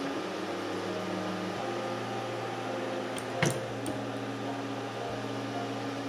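LOTMAXX SC-10 Shark 3D printer running: a steady fan hum with a few steady motor tones that shift in pitch about one and a half seconds in. A single sharp click about three and a half seconds in.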